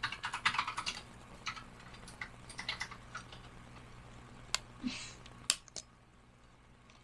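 Small plastic kit parts being handled and clipped together: a quick run of light clicks and taps in the first second, then scattered single clicks.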